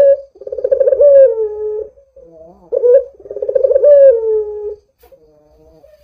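Puter dove (Barbary dove) cooing. It gives two long rolling, trilled coos about two seconds apart, each opening with a short note and falling in pitch at its end. A faint, short softer coo follows near the end.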